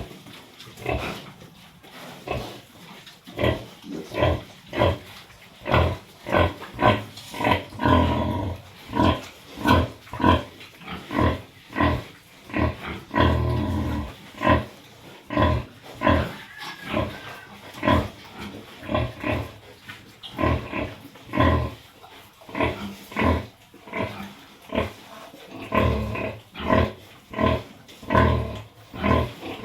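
A pig grunting over and over in short low grunts, about two a second, with a longer drawn-out grunt or two around the middle.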